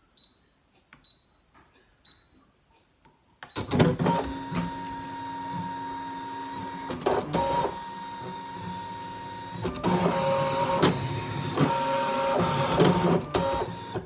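Brother ScanNCut electronic cutting machine cutting a card layer: its motors whir steadily, starting about three and a half seconds in and changing pitch several times as the cut goes on.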